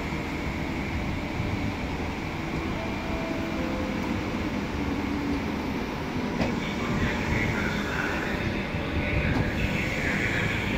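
Frecciarossa 1000 (ETR 1000) high-speed electric train pulling slowly into the station: a steady rumble of wheels on the rails and running gear, growing louder as the nose comes by. In the second half a higher, squealing whine joins in.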